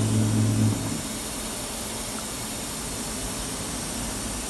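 MultiCam 3000 Series CNC router's servo-driven axes finishing a full-speed parking move: a steady low hum stops abruptly about a second in as the machine brakes at the end of the table. What remains is a steady hiss of running equipment.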